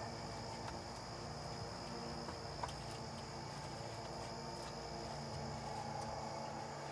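Crickets trilling steadily in the field, one continuous high-pitched drone, with a single faint click about two and a half seconds in.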